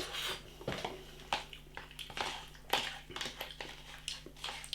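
Someone eating instant noodles: a string of short, irregular slurps and small clicks, about one every second.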